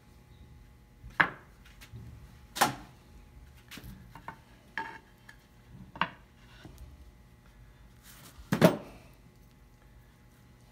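Glue-coated wooden boards handled and set onto one another on a workbench for a glue-up: a few sharp knocks and clacks of wood on wood, the loudest near the end.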